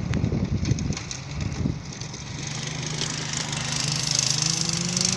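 Crackling for the first couple of seconds, then a small go-kart engine running and revving up, its pitch rising steadily as the kart accelerates across the snow.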